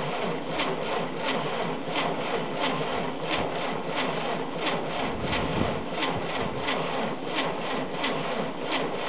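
Rebuilt air-cooled Volkswagen flat-four engine being spun over by its starter motor with the ignition coil disconnected, so it does not fire. It makes a steady churning with a regular pulse about three times a second. The cranking builds oil pressure: the oil-pressure warning light goes out partway through.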